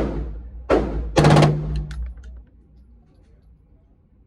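Gunshots: a single shot, another a little under a second later, then a short rapid burst of automatic fire about a second in, dying away after.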